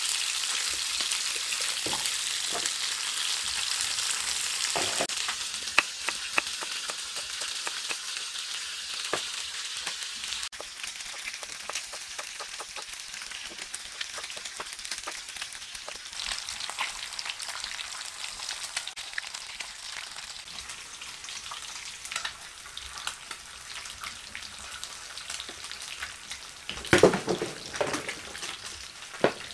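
Fish steaks sizzling in hot soybean oil in a nonstick frying pan, loud for about the first ten seconds, then quieter. Through the middle, short knife taps on a wooden chopping board; near the end a brief louder clatter of tomatoes knocking in a plastic bowl.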